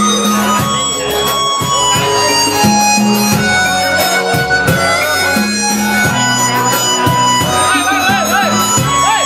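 Loud amplified music, with a melody of long held notes over a repeating bass line.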